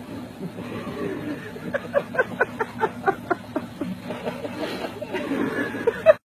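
A person laughing in a quick run of short bursts, over the steady low hum of a car. The sound cuts off abruptly near the end.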